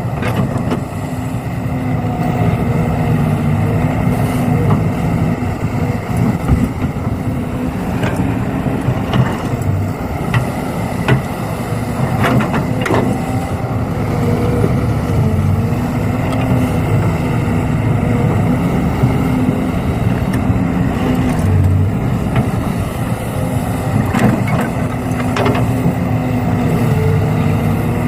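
Remote-control model excavator and dump truck at work: a steady motor drone runs throughout, with a few sharp clicks and knocks scattered through it.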